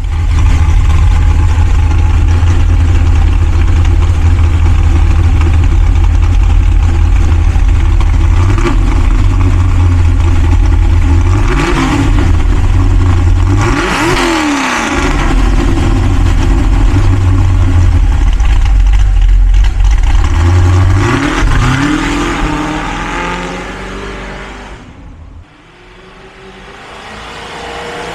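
Merlin 632 cubic-inch big-block V8 in a 1969 Chevrolet Nova running loudly at the exhaust, a steady deep idle broken by quick blips of the throttle, twice close together about halfway through and once more later. Near the end the sound drops away and then swells again as the car is heard coming closer.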